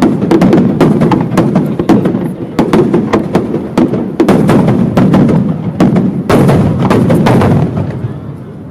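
Fireworks display going off in rapid, dense salvos: many sharp bangs and cracks one on top of another over a heavy rumbling boom, thinning out near the end before a few more bangs.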